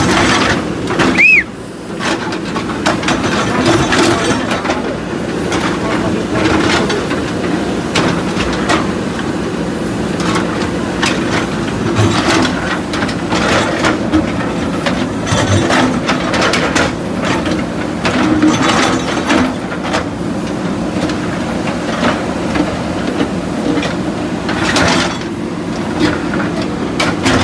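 Diesel engines of two JCB 3DX backhoe loaders running under load, with frequent clanks and knocks as their steel buckets break and scrape concrete and rubble. A brief high squeal about a second in.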